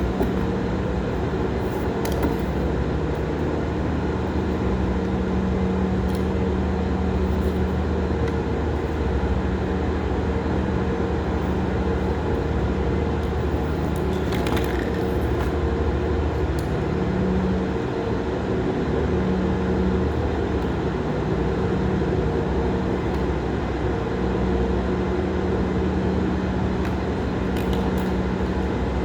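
Steady hum of running machinery, a low drone with a few faint clicks.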